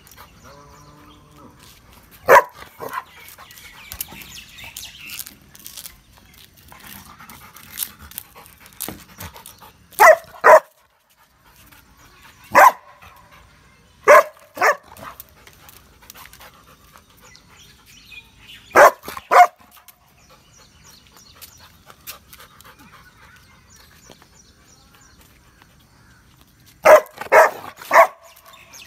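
A Rottweiler barking on a guard command: loud barks singly or in pairs every few seconds, with a run of three near the end, and quieter stretches in between.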